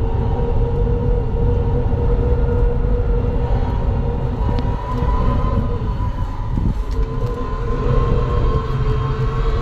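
Inside the cabin of a Hyundai Ioniq 5 N at speed: the electric drive's whine, two steady tones rising slowly in pitch, over a heavy rumble of road and wind noise.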